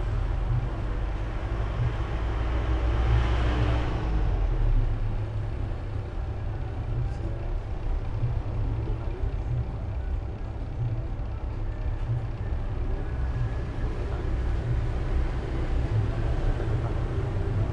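Steady low rumble of background noise, with a brief swell of hiss about three seconds in.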